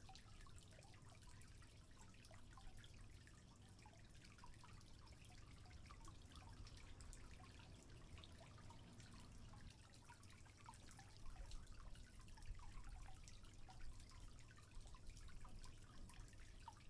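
Faint trickling, dripping water, many small drips over a low steady rumble, a little louder from about eleven seconds in.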